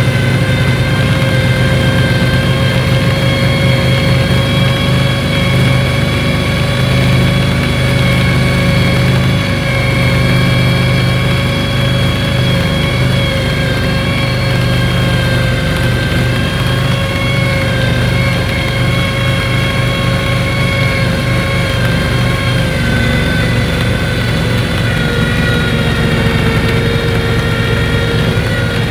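Tracked 2005 Argo 6x6 running steadily while driving across snow. Its engine's rumble carries a steady whine above it.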